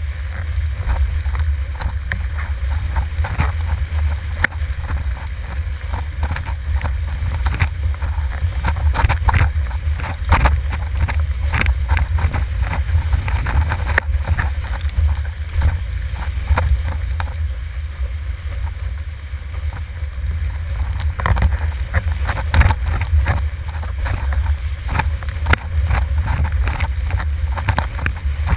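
Wind buffeting the microphone of a camera mounted on a windsurf rig, making a steady heavy low rumble. Frequent short sharp slaps and splashes come through it as the board runs over chop at speed.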